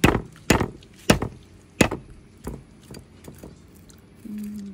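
Hard strikes cracking the shells of fire-roasted cashew nuts: four sharp knocks about half a second apart, then several lighter taps.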